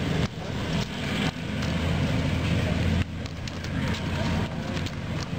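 Stiff, dry basket-weaving strips crackling and rustling as they are pulled and tucked into a woven basket base by hand, over a steady low hum.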